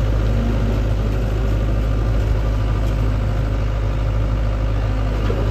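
Diesel engine of a Sany SY75C excavator running steadily at low revs, a deep even drone that does not change pace.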